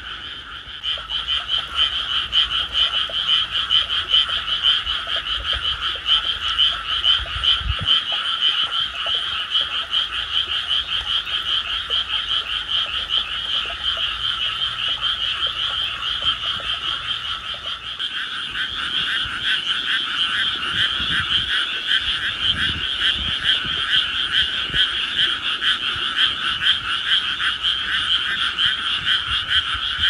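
A dense chorus of many frogs croaking together, a continuous mass of rapid pulsed calls; it grows fuller a little past halfway through.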